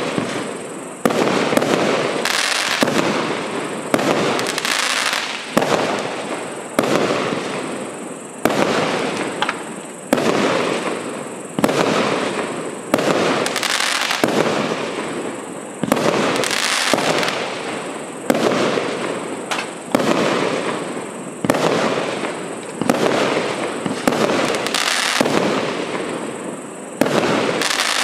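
A 56-shot, 500-gram consumer firework cake firing shot after shot, about one a second. Each shot is a sudden loud report that fades out over about a second before the next one.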